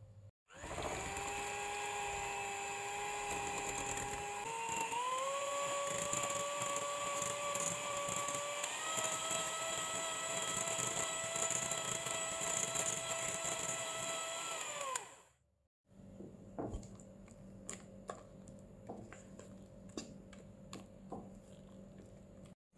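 Electric hand mixer with wire beaters running in a glass bowl of creamed butter and egg. Its motor whine steps up in pitch twice as the speed is raised, then winds down with a falling pitch about 15 seconds in. After that come soft, irregular scraping and clicking as a spatula folds the batter against the glass bowl.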